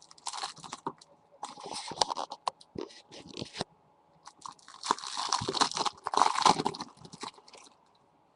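Opened foil trading-card packs and their wrappers being handled, crinkling and rustling in irregular stretches with small clicks as the cards are shuffled.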